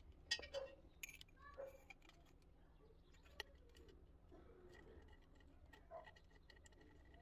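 Near silence, with a few faint clicks and taps of braided steel supply hoses and a chrome basin tap body being handled as the hoses are threaded into the tap's base.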